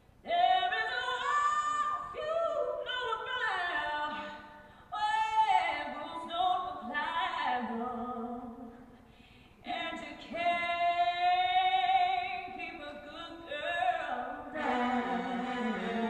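A woman's singing voice from a pop song with sparse backing: long held notes with vibrato, in three phrases broken by two short pauses.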